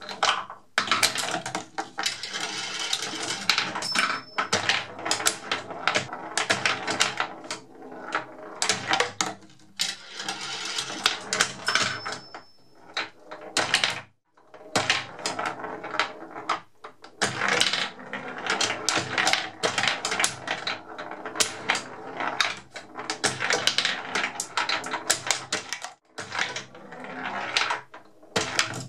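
Glass marble rolling and clattering around a homemade all-wood pinball machine, with the wooden flippers clacking and the ball knocking against the wooden rails, a dense run of clicks and rattles. Play breaks off briefly twice, about a third and near the end.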